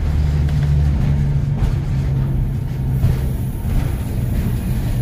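Electric streetcar heard from on board: a steady low hum and rumble from its running machinery.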